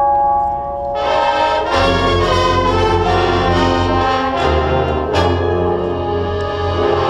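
Drum and bugle corps brass and percussion playing live. A held brass chord gives way to the full ensemble about a second in, with two sharp accents between four and five seconds.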